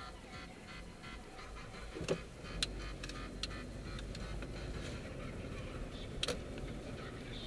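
Car cabin noise while driving slowly: a steady low engine and road rumble, with several sharp, irregular clicks and knocks, the loudest about two seconds in and another near the end.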